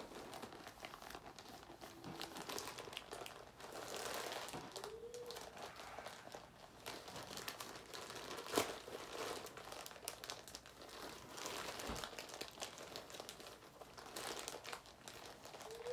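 Plastic shipping bag crinkling and rustling as it is handled and pulled at to get it open, with one sharp click about eight and a half seconds in.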